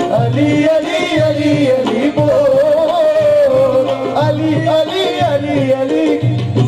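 Live qawwali music: a man's voice singing a long, wavering melodic line into a microphone over harmonium, with a steady hand-drum beat about twice a second.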